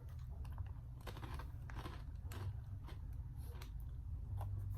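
Someone eating fried chicken close to the microphone: faint, scattered crunches and small clicks of biting and chewing over a low steady hum.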